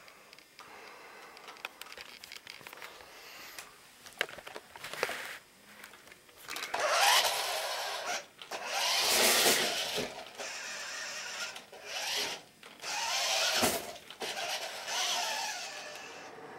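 Radio-controlled toy car's small electric motor and gears whirring in about five short bursts, each about a second long, as it is driven.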